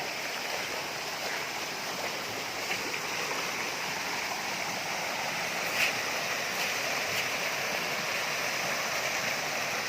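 Waterfall stream water rushing steadily, an even hiss with a faint tick about six seconds in.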